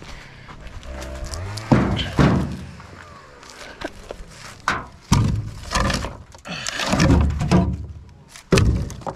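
Logs being tossed into a pickup truck's bed, a series of heavy wooden thunks against the bed over several seconds.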